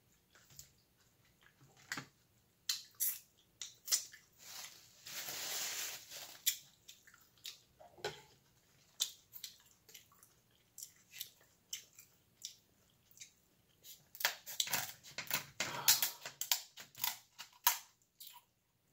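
Close-up eating and shell-cutting sounds: chewing on corn, then kitchen shears snipping and crunching through a king crab leg shell, a run of sharp clicks and cracks that is thickest in the last few seconds. A second-long noisy hiss comes about five seconds in.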